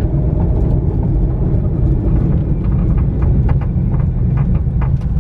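2020 Shelby GT500's supercharged 5.2-litre V8 running loud through its exhaust while driving, with short clicks or creaks scattered over it. The owner hears this creak when slowing down and doesn't know where it comes from.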